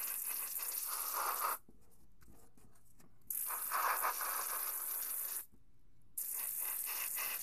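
Paasche H-series single-action airbrush spraying in three bursts of hissing air. It stops about one and a half seconds in, sprays again from about three seconds, and pauses briefly near the end before starting again.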